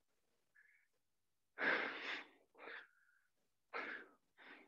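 A man breathing hard from exercise, four short audible breaths in quick succession.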